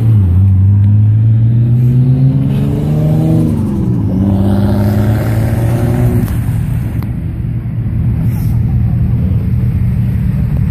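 Car engine accelerating hard, its pitch climbing, dropping at a gear change about four seconds in, then climbing again. After that the engine runs at a steadier pitch.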